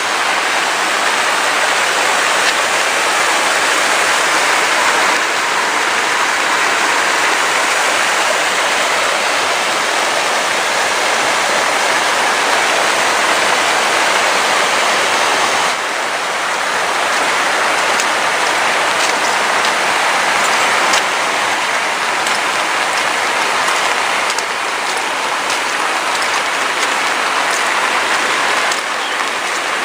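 Steady rain falling, with individual drops ticking out more clearly in the second half.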